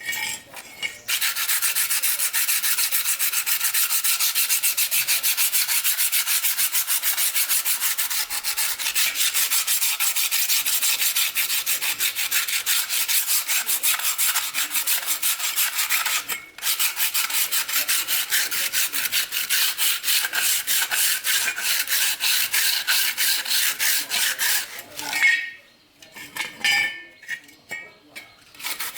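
Fast, even back-and-forth scraping strokes of a hand tool rubbing a hard part, as in filing or sanding during a repair. They run steadily with a brief break about sixteen seconds in and stop near the end, followed by a few light clinks.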